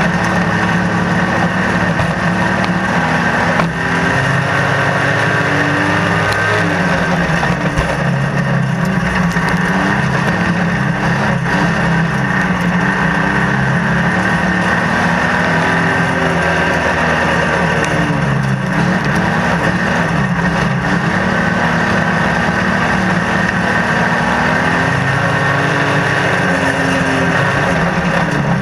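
Stockcar's engine running hard under racing load, heard from inside the cabin. Its pitch sags and climbs again about three times as the car backs off into the turns and accelerates out down the straights.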